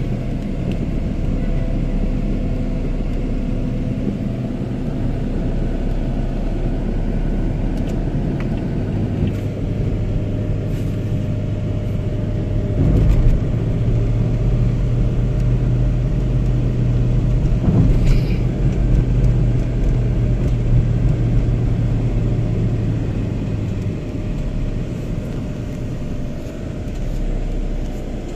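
Steady low rumble of a car's engine and tyres, heard from on board while driving in city traffic, with an engine hum that grows stronger through the middle. Two brief thumps stand out, one about halfway through and a louder one a few seconds later.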